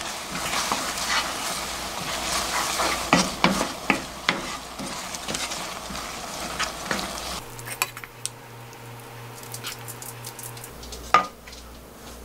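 Wooden spatula stirring thick onion black-bean (jjajang) sauce as it sizzles in a nonstick wok, with frequent scraping clicks against the pan. About seven seconds in the stirring stops, leaving a quieter low hum and one sharp knock near the end.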